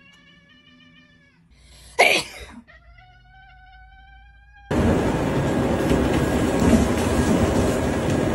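A cat gives two long, drawn-out meows, each starting with a loud harsh burst and then holding one note; the first sags slightly in pitch and the second rises. About two-thirds of the way through, a loud steady whirring noise cuts in abruptly, a motorised walking treadmill running.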